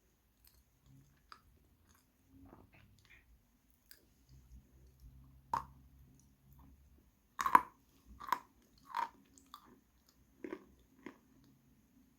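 Close-miked chewing of crunchy edible chalk: irregular crisp crunches and chewing, with the loudest burst of crunches a little past halfway and several more bites after it.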